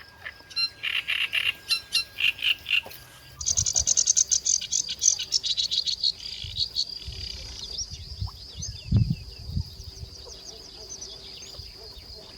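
Countryside animal calls. A run of quick repeated chirping notes gives way a little over three seconds in to faster, higher chirping. Under it a steady high insect whine carries on, and a low thump comes about nine seconds in.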